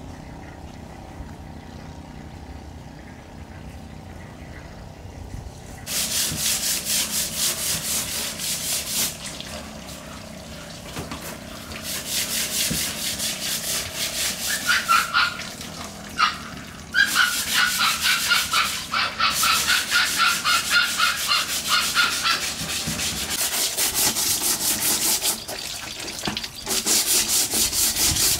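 A stiff hand scrubbing brush worked back and forth over a wet woven bamboo mat under a running tap, starting about six seconds in. The rapid rasping strokes come in runs with short pauses, and high squeaks sound partway through.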